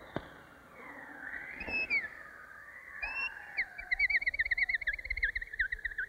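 A thin, high whistled tone on an old cartoon soundtrack, wavering slowly up and down. About halfway through it turns into a quick, even warble of roughly four trills a second.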